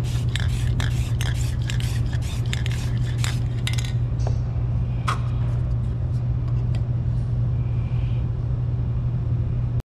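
Aerosol spray-paint can giving short hisses in quick succession for the first few seconds, then only a few faint strokes, over a steady low hum.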